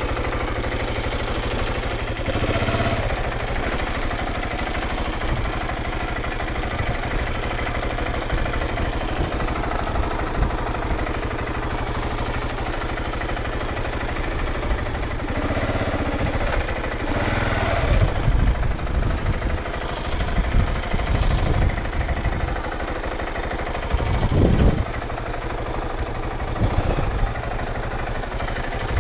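KTM 690 Enduro R's single-cylinder engine running steadily at low revs. Irregular heavier low thumps come in from about halfway to near the end.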